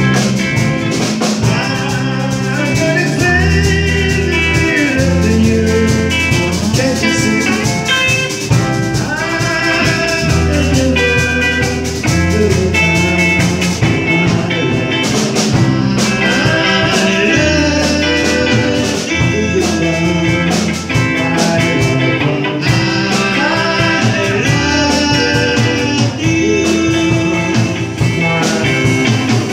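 Live band playing a blues-rock number on electric guitars and drum kit, with a steady bass line underneath.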